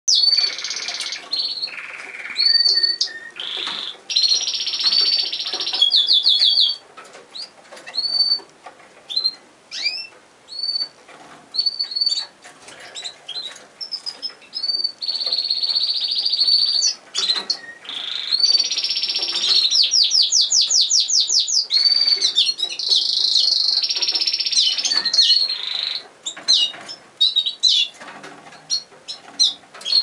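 Canaries singing and calling: stretches of fast rolling trills and warbled song alternate with single short rising chirps, the trilling heaviest at the start and again in the second half.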